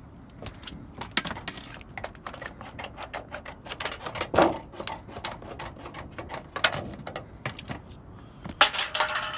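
Hand snips cutting and bending the end of a standing-seam metal roof panel: irregular metallic clicks and crinkling of thin sheet metal, in several short bursts.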